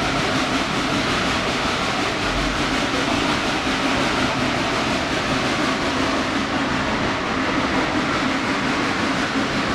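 Steady running noise of a steam excursion train heard from aboard an open-sided car: the cars rolling on the rails while the geared steam locomotive ahead works up the grade.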